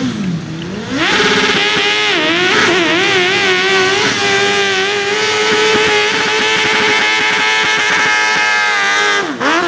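Suzuki GSX-R 1000 inline-four motorcycle engine in a garden pulling tractor, blipped briefly and then opened up about a second in to a high, steady scream as it tows the weighted pulling sledge. The revs waver a few times early in the pull, hold high and steady, then drop sharply near the end as the throttle comes off.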